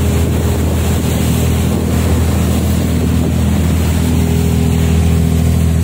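Small ferry bumboat's engine running steadily under way, a low drone, mixed with the rush of the wake and wind on the microphone.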